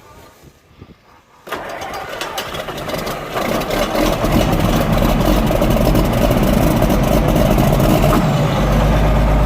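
An engine-driven anchor cranker kicks in about a second and a half in, builds over a couple of seconds and then runs loud and steady, driving a ground anchor into the soil.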